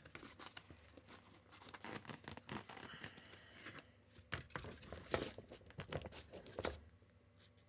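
Nylon softbox fabric rustling and crinkling, with irregular small clicks and knocks as a support rod is worked into the softbox's mount ring. The sound cuts off abruptly near the end.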